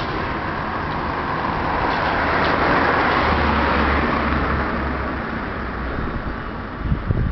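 A road vehicle drives past. Its noise swells to a peak about three seconds in, with a low rumble as it goes by, then fades away. A few low thumps follow near the end.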